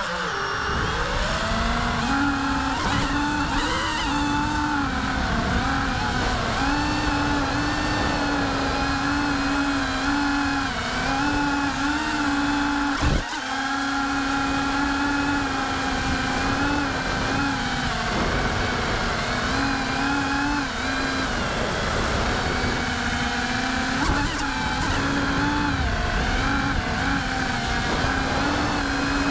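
FPV quadcopter's brushless motors and propellers whining, their pitch stepping up and down as the throttle changes, over low wind rush on the onboard microphone. A single sharp knock cuts in about halfway through.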